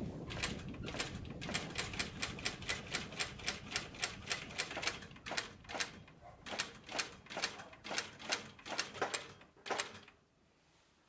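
A quick run of sharp, light taps, about three a second, over a low rumble. The taps thin out midway, pick up again and stop about ten seconds in.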